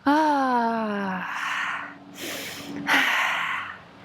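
A woman's long voiced sigh that falls in pitch, followed by a few heavy breaths blown out through the mouth. She is catching her breath after a bout of jumping exercise.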